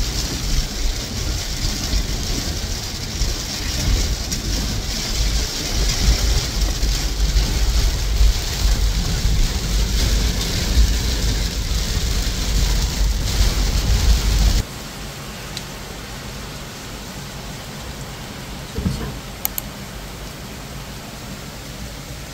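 Heavy rain on a car, heard from inside the cabin as a loud steady hiss over a deep rumble. About two thirds of the way through it drops suddenly to a quieter, even rain hiss.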